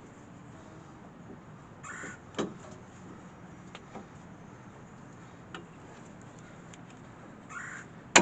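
A crow cawing twice in the background, over scattered light clicks and knocks of work. A louder knock comes about two and a half seconds in, and a sharp clank at the very end is the loudest sound.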